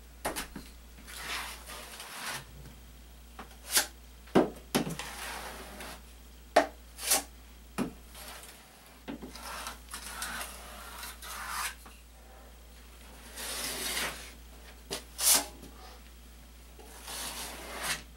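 Drywall knife scraping and spreading joint compound along metal corner bead, in strokes of a second or so, with scattered sharp clicks of the blade striking metal as it is worked against the mud pan and bead.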